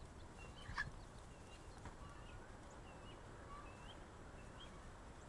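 Faint peeping of newly hatched bantam chicks: short, high chirps repeating every half second or so, with one soft knock about a second in.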